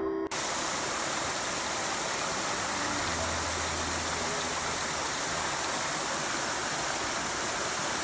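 Shallow stream running over a bed of rocks and stones, a steady rush of water.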